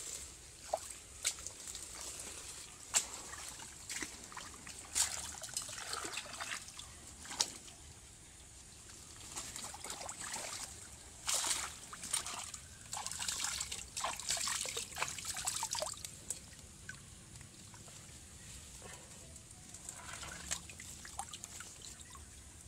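Irregular rustling, snapping and wet squelching as lasia plants are pulled by hand from muddy, waterlogged ground, with water trickling and splashing. The handling noise is busiest in the middle and thins out near the end.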